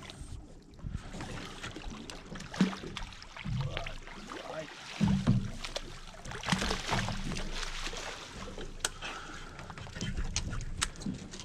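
Ambient sound aboard a small fishing boat: an uneven wash of water and wind with scattered knocks and thumps.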